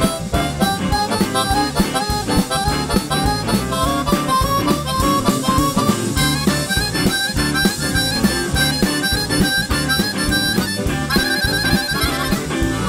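Blues harmonica solo played cupped against a handheld microphone, fast runs of notes ending in a warbling trill near the end, over a live band of drums, bass, keyboard and electric guitar.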